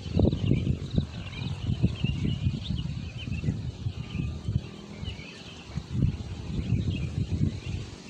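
Gusty wind buffeting the microphone in uneven rumbling blasts, with birds chirping steadily in the background.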